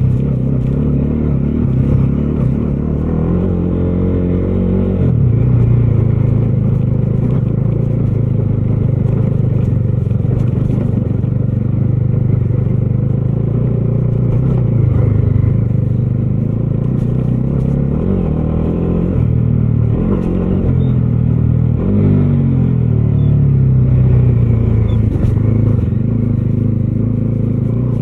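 Bajaj Dominar 250's single-cylinder engine running under way, its pitch climbing and dropping several times with throttle and gear changes.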